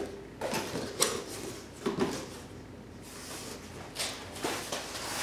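Cardboard box and packing being handled: several short rustles and scrapes as the flaps and a cardboard insert are moved, the sharpest about a second in and about four seconds in.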